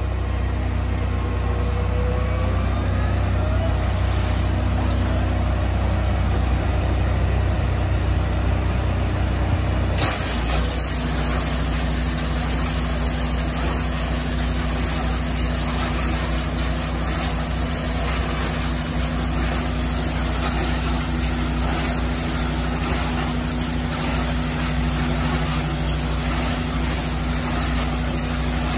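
Hot-water pressure-washing rig on a bin-washing trailer running steadily with an engine hum. About ten seconds in, a loud spraying hiss starts up as the wash jets come on inside the upturned bins, and it runs on over a steady low drone.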